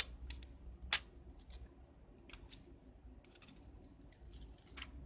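Light clicks and ticks of small tools and parts being handled during phone reassembly: two sharper clicks in the first second, then scattered faint ticks.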